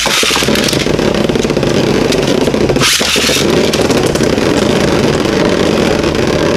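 Two Beyblade Burst spinning tops launched into a clear plastic stadium, whirring and scraping steadily as they spin and move around its floor, with a brief harsher burst about three seconds in.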